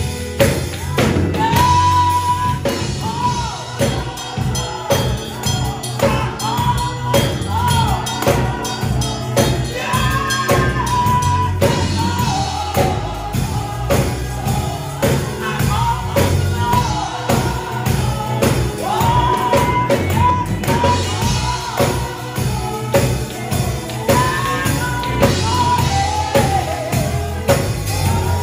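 Live gospel praise music: singing over organ with a steady percussive beat.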